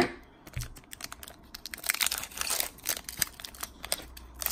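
Foil wrapper of a Pokémon booster pack crinkling and tearing as it is opened: a sharp click at the very start, then a run of crackles, densest about two seconds in.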